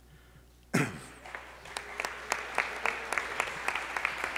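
Audience applause breaks out about a second in, a dense patter of many hands clapping, starting with a loud burst.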